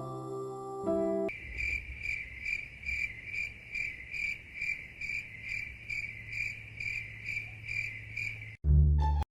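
Cricket chirping sound effect: a high chirp repeating steadily about two to three times a second. It starts after a brief held musical tone and gives way near the end to a short, loud low-pitched sound that cuts off abruptly.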